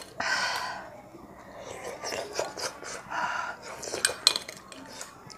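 A metal spoon scraping and clinking in a glass bowl, with several sharp clicks about four seconds in, mixed with loud breaths through pursed lips close to a clip-on microphone.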